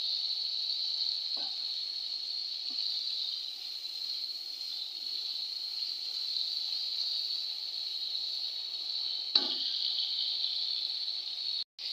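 Tomato-and-chilli curry masala sizzling and bubbling in hot oil in an aluminium pot, being fried down after the red chilli and turmeric went in. A wooden spatula knocks lightly against the pot a couple of times, once more sharply about nine seconds in.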